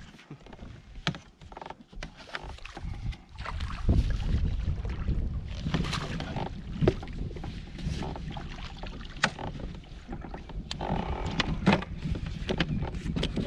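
Kayak on the water: water splashing and sloshing around the hull, with scattered sharp clicks and knocks of gear being handled. The splashing grows heavier about four seconds in.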